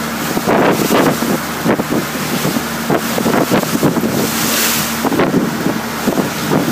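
Small motor launch under way: a steady low engine hum under heavy wind buffeting on the microphone and water rushing and splashing along the hull in choppy sea.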